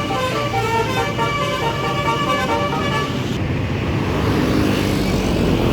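Tour bus's basuri horn, a multi-tone musical air horn, playing a quick tune of stepped notes that stops about three seconds in, over the running of vehicle engines.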